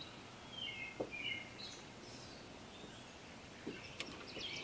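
Faint dawn birdsong over a calm lake: a few short chirps from small birds, with a rapid high trill starting up again near the end. Two faint clicks, about a second in and near the end.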